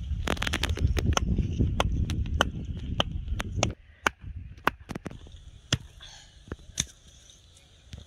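A string of sharp knocks, several a second, over a heavy low rumble that cuts off suddenly a little before four seconds in; after that, a few sparser knocks.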